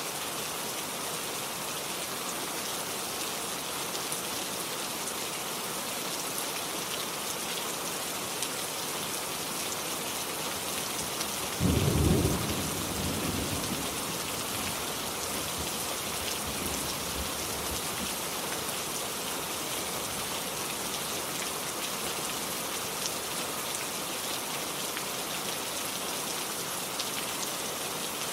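Steady rain hissing and pattering. About twelve seconds in, a single short thunderclap breaks in, and its low rumble dies away over the next two seconds.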